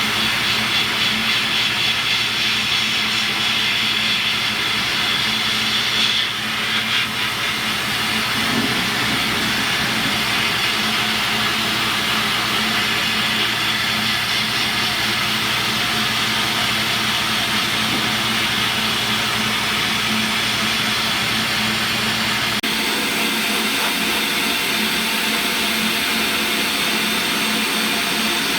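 Sandblast cabinet's air gun blasting coal slag media: a loud, steady hiss of air and grit. A low hum underneath stops about three quarters of the way through.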